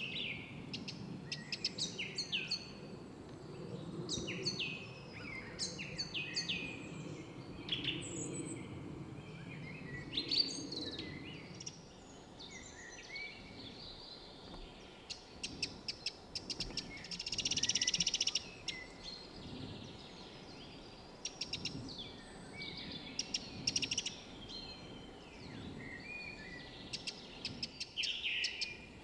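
Woodland songbirds singing and calling: many short chirps and whistled phrases, with a dense, rapid trill about two-thirds of the way through. A low rumble lies underneath during the first half.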